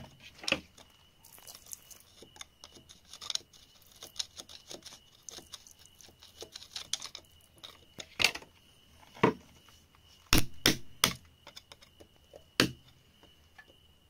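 Metal hand tool scraping and picking at packed earth and grit, making irregular small scrapes and clicks, with a few sharper taps in the second half.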